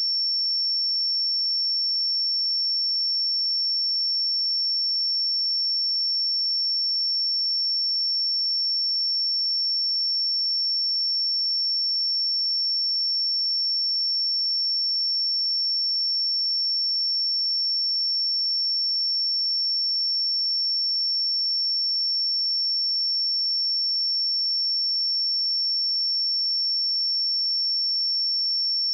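A steady pure sine-wave test tone at 5442 Hz, one high unchanging pitch held at constant level, for checking speakers or headphones.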